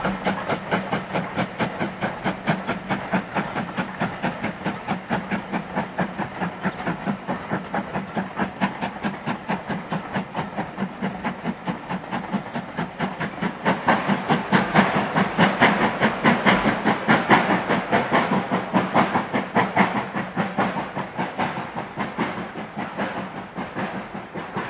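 Steam locomotive hauling a passenger train under steam, its exhaust beating in a fast, even rhythm. The beats get louder past the middle, then fade toward the end.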